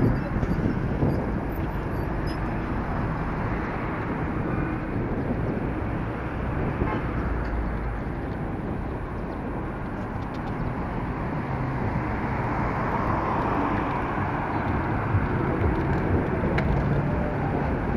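Steady city-street traffic noise heard from a vehicle moving along the road: a continuous rush of engines and tyres.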